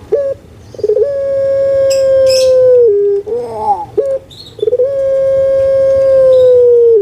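Puter pelung, a large, loud-voiced domestic ringneck dove, cooing: short rolling notes that glide down, then two long drawn-out coos, each held steady and sinking slightly before it drops to a lower pitch at the end.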